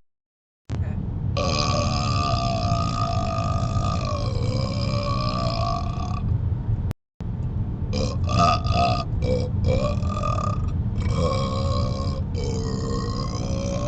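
A man burping over and over: one long drawn-out burp of about five seconds, then a quick run of short burps and a few longer ones near the end. Underneath runs the low rumble of the moving car, and the sound cuts out completely for a moment at the start and again about seven seconds in.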